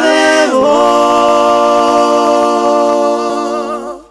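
Unaccompanied singing: the voice glides down a little under a second in, then holds one long note with a slight waver, fading out just before the end.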